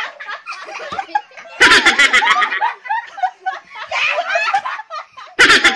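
Several people laughing, with two loud bursts of rapid, pulsing laughter, about a second and a half in and again near the end, and lighter giggling between.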